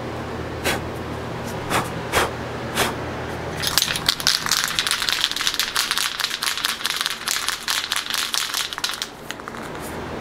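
Rust-Oleum clear coat aerosol can shaken hard from about four seconds in, its mixing ball rattling rapidly for about five seconds, after a few separate clicks. Ventilation fans hum steadily underneath.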